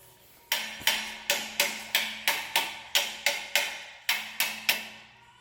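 Hammer tapping steadily on the car's clutch assembly, about three sharp ringing strikes a second with a short pause near the end, to knock loose a part jammed by burnt clutch dust.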